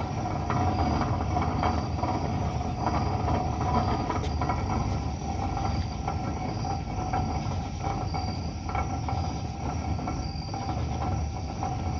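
Truck's badly worn wheel bearings roaring steadily as it rolls slowly, at under about 10 miles an hour: a loud racket that is the sign of trashed wheel bearings.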